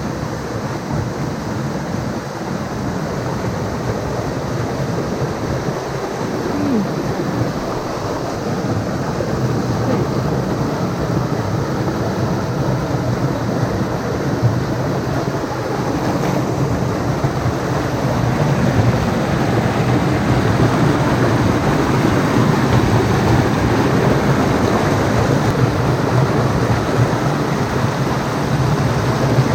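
Stream water rushing steadily, a continuous loud rush that grows a little louder in the second half.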